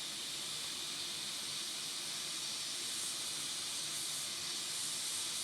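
Hot air rework station blowing a steady hiss while it melts the solder on a freshly fitted charging port.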